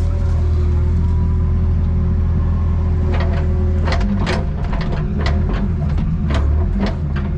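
Excavator's diesel engine running steadily, with a steady whine above it; from about three seconds in, a quick series of sharp cracks and snaps breaks in over the engine.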